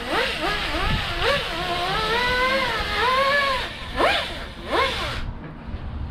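Air-powered 3-inch 90-degree angle grinder with a 36-grit disc grinding down the hard molded edges of a foam seat cushion, its whine sliding up and down in pitch as the disc is pressed in and eased off. It spools up quickly twice near the middle and then winds down about five seconds in.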